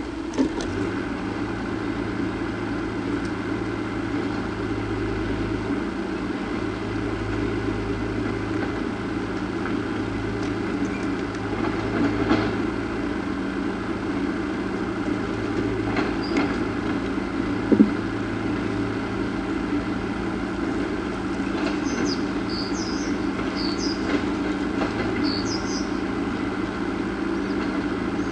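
Steady low mechanical hum, with a few short high chirps in the last few seconds.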